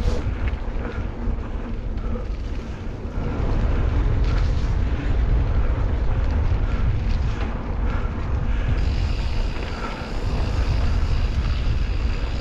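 Wind noise on the microphone and tyre rumble from a mountain bike riding a dirt singletrack trail, with small clicks and rattles from the bike. It gets louder from about three seconds in.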